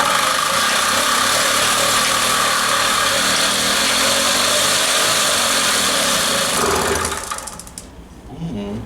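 A Motobecane moped's small two-stroke engine firing up on its first start after restoration and rebuilt Gurtner carburettor work. It runs steadily for about seven seconds, then dies away.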